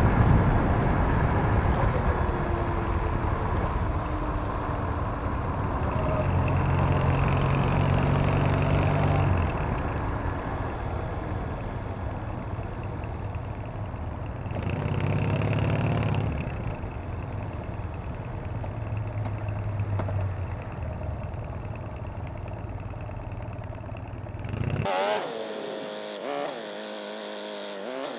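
Triumph Bonneville parallel-twin engine running under way with wind and road noise, the pitch rising and falling a few times as the throttle opens and closes. Near the end the low rumble cuts off suddenly, leaving a quieter wavering tone.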